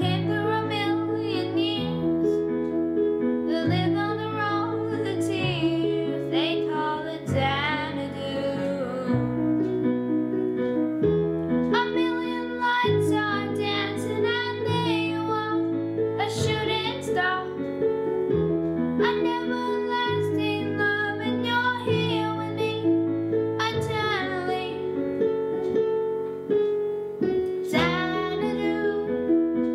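A boy singing while playing held chords on a digital piano keyboard, the chords changing every second or two under his voice.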